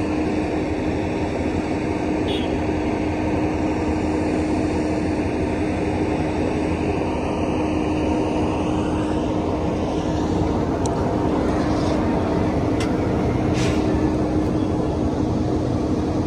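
Steady drone of heavy diesel vehicles running in an open yard, including a wheel loader working nearby. A few faint clanks come in the second half.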